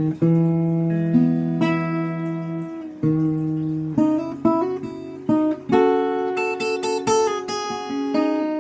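Background music: acoustic guitar picking a slow melody with ringing notes, turning to a quicker run of notes in the second half.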